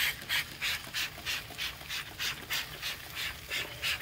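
Trigger spray bottle squeezed again and again, about three quick hissing spritzes a second, misting chicken drumsticks on the grill to keep them tender.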